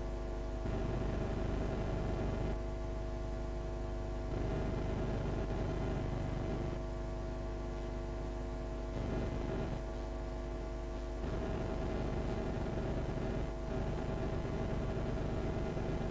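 Steady electrical hum and buzz, several fixed tones held throughout, over faint room noise that rises and falls every few seconds.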